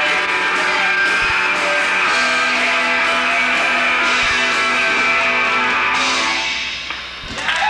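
A live riot grrrl punk band plays with electric guitars and accordion under held chords. The last chord dies away about six and a half seconds in, and applause breaks out right at the end.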